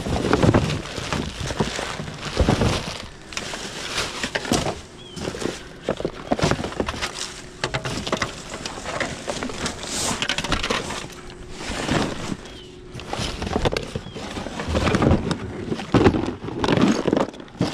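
Plastic trash bags, cardboard boxes and loose rubbish rustling and crinkling in irregular bursts as gloved hands dig through a dumpster.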